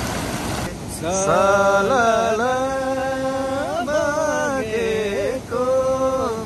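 A voice chanting in long held notes that slide from one pitch to the next, beginning about a second in, with short breaks between phrases. Before it starts there is a steady hiss.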